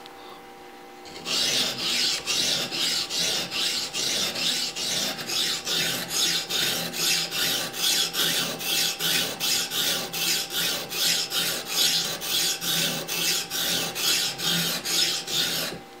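A 220-grit sharpening stone on an Edge Pro guide rod is stroked back and forth along the edge of a steel poultry shear blade: a rhythmic rasping scrape of about three strokes a second, starting about a second in and stopping just before the end. The stone is grinding off metal from a very dull edge that is just beginning to raise a burr.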